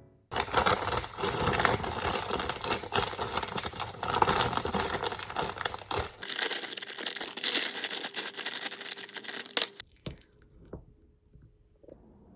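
Dense crinkling and crackling, about ten seconds long and thinner in tone from about six seconds in, then stopping abruptly; a few soft knocks follow near the end.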